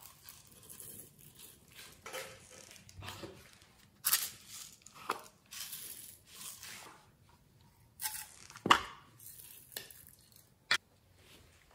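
Plastic sequins shaken out of small plastic bottles onto slime, coming as separate bursts of rattling and rustling, with a couple of sharp clicks of the plastic containers in the second half.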